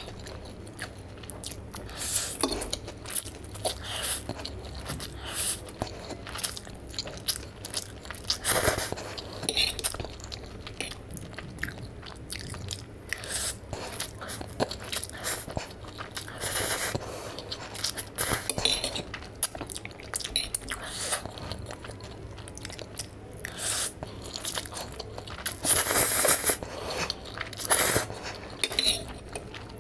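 Close-miked eating of spicy Korean instant noodles from a fork: chewing and noodles being slurped in now and then, with the fork clinking and scraping on the plate.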